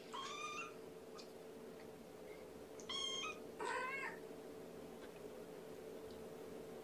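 Young kitten, about three weeks old, meowing: three short high cries, the last two close together. It is still hungry and crying for more food between syringes of a feeding.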